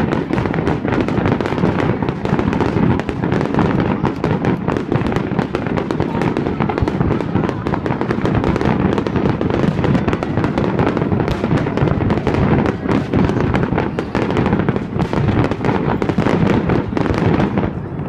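A fireworks display: a dense, continuous run of bangs and crackling as shells and ground barrages go off in quick succession, with no pause.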